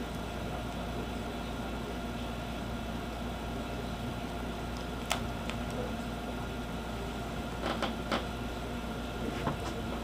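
Steady background hum and hiss, with a few small sharp clicks about five seconds in, a cluster around eight seconds and one near the end. The clicks come from small screws and a magnetic screwdriver being handled against a laptop's plastic screen housing.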